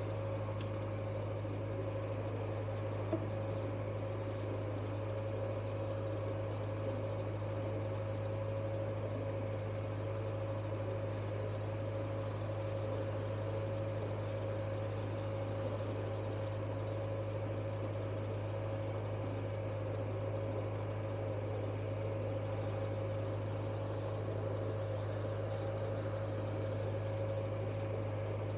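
A narrowboat's diesel engine running steadily as the boat cruises: a constant low drone with a steady hum above it.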